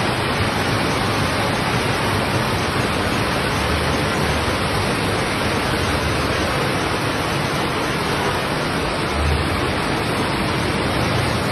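Steady, loud rushing noise of a heavy rainstorm with floodwater running in the street.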